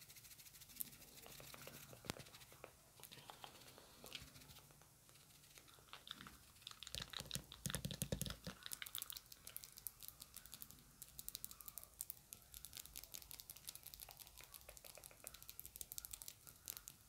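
Fast tapping with long acrylic fingernails close to the microphone: scattered light clicks at first, becoming a rapid run of clicks about six seconds in, with a dull bump about eight seconds in.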